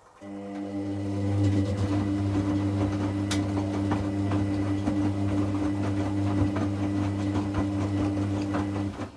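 Hoover Classica 1100 AC164 washing machine tumbling its drum during a rinse: the drum motor starts suddenly and hums steadily for about nine seconds. Water and laundry slosh and knock inside. The motor stops abruptly near the end.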